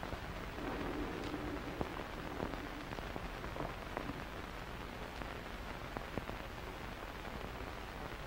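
Faint steady hiss with scattered soft clicks and a low hum in the first couple of seconds: the surface noise of an old film soundtrack, with no speech over it.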